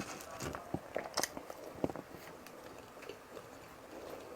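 A person chewing and smacking their lips while eating ginataang tulingan (bullet tuna in coconut milk), with several sharp mouth clicks in the first two seconds, then softer chewing.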